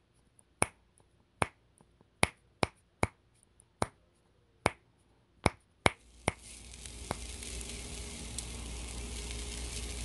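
About ten sharp finger snaps, spaced roughly half a second to a second apart, over the first six seconds. Then raw chicken pieces start sizzling on a charcoal grill grate, the sizzle building gradually from about six seconds in.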